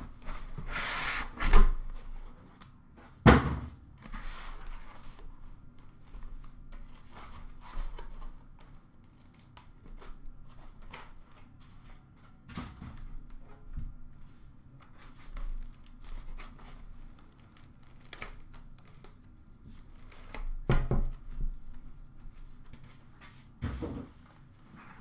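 Cardboard shipping case and foam packing scraping and rustling as a boxed card set is slid out and handled. There are scattered knocks, two sharp ones in the first few seconds and a couple more near the end.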